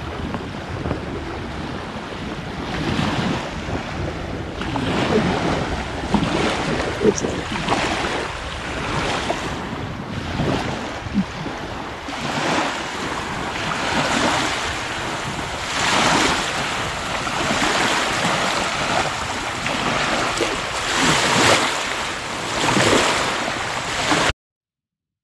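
Small sea waves lapping and washing onto the shore in repeated surges every couple of seconds, with wind buffeting the microphone. The sound cuts off suddenly near the end.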